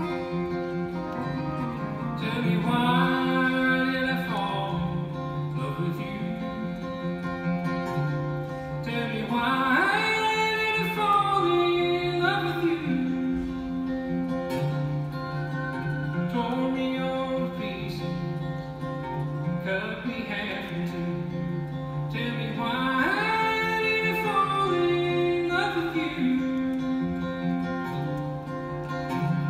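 Live acoustic duo music: an acoustic guitar and a second acoustic string instrument playing a slow song, with sung phrases a few seconds long coming in over the picking.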